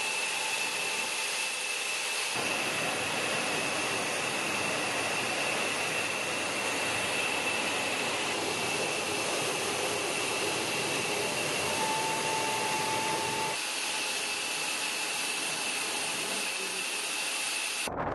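Jet engine noise of an aircraft in flight: a steady rush with a high, steady whine, and a short steady tone about two-thirds of the way through.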